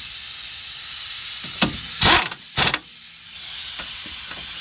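Impact gun, its torque turned down, firing two short bursts about two seconds in to run in the caliper mount bracket bolts, over a steady hiss.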